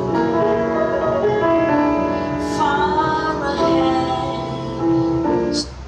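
A song with a woman singing over piano, played through an Anker Soundcore 3 portable Bluetooth speaker. The music cuts off suddenly near the end when it is paused with the speaker's button.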